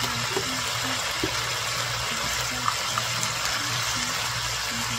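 Kitchen tap running in a steady stream, water splashing as hands are washed free of raw chicken.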